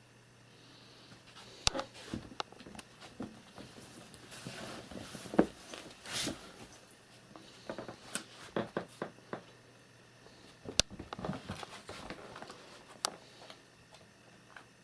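Kittens playing and chasing: paws scampering and scuffling on a rug and floor, with scattered light knocks and a few sharp clicks.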